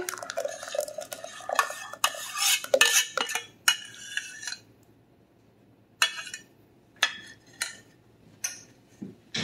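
Metal spoon scraping sauce out of a stainless steel saucepan, with clinks of spoon against pan. The scraping stops about four and a half seconds in, and after a short pause come a few separate sharp clinks and knocks.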